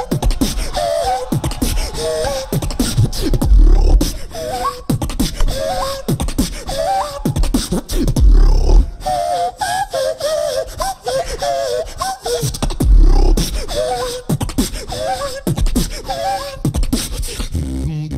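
Beatboxing in a train-themed routine: rapid mouth clicks and snares under a warbling, whistle-like vocal tone, with a deep bass kick about every four to five seconds. Near the end a low buzzing bass tone takes over.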